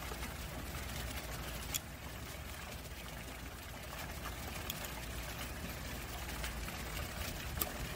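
Steady trickle of running water from a backyard koi pond. Two sharp clicks, one about two seconds in and one near the end.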